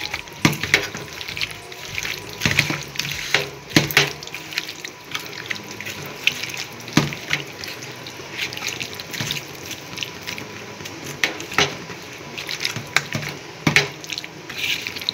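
Wet squelching and squishing of a hand kneading raw chicken pieces with spice paste and mustard oil in a steel bowl, in irregular clicks and squelches.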